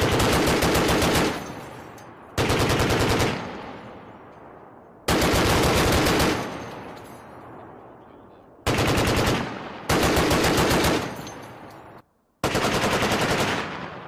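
Browning M2 .50 calibre heavy machine gun firing six short bursts of rapid shots, each about a second long and followed by a fading echo.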